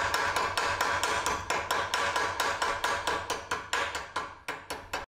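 Chipping hammer rapidly striking the slag off a steel inside-corner fillet weld made with a rutile-cellulosic electrode, about five sharp strikes a second; the strikes stop abruptly near the end.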